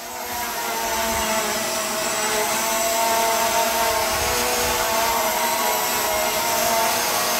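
Holy Stone HS440 quadcopter drone in flight: its four motors and propellers make a steady buzzing whine, growing a little louder over the first second, its pitch wavering slightly as the drone manoeuvres.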